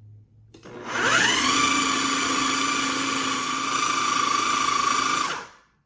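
Electric food processor motor whirring up to speed with a rising whine, then running steadily as its blade chops quartered mushrooms fine, and cutting off near the end.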